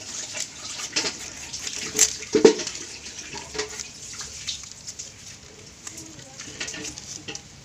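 A small fish being scraped and cut against an upright bonti blade: irregular scraping and rasping with short sharp clicks and taps, the loudest stroke about two and a half seconds in.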